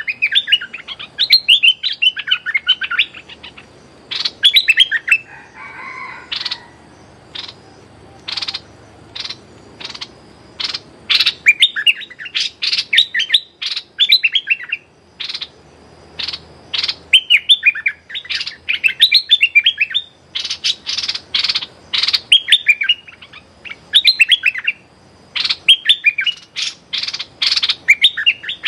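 Decoy bulbul calling from a trapping cage: bursts of rapid, chattering call notes, with single sharp notes between the bursts, repeated over and over as a lure call.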